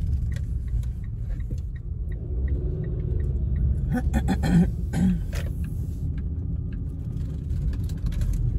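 Steady low rumble of a car driving on wet road, heard inside the cabin. Even, rapid ticking in the first few seconds fits a turn signal as the car turns at an intersection, and a brief louder squeak-like sound comes about four to five seconds in.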